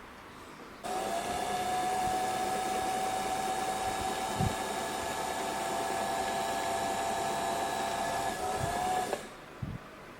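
Singer 221K Featherweight sewing machine's electric motor running at a steady high speed, driving the bobbin winder, with a steady whine. It starts about a second in and winds down and stops near the end.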